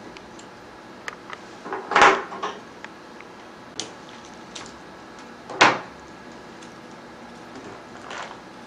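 Handling noises of hard parts: scattered light clicks and two loud short knocks, about two seconds in and again about five and a half seconds in, with a softer knock near the end.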